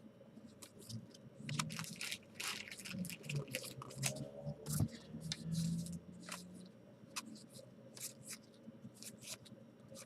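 Trading cards being handled: quick, soft clicks and scrapes of card stock as cards are slid and flicked through a stack.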